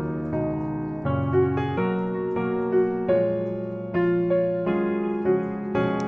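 Background music: an instrumental led by a keyboard playing chords and a melody, the notes changing about every half second.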